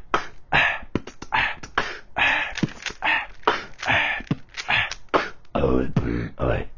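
A person beatboxing: a quick run of vocal kick drums and hissing snare sounds, with a low hummed tone held for about a second near the end.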